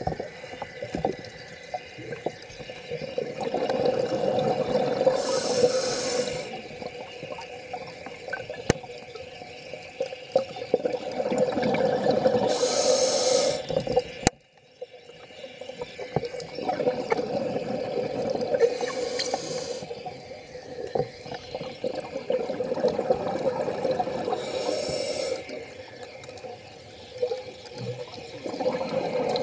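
Scuba diver breathing through a regulator underwater: four loud hissing bursts of exhaled bubbles about six seconds apart, with a lower rushing sound between them. A sharp click and a brief drop-out about halfway through.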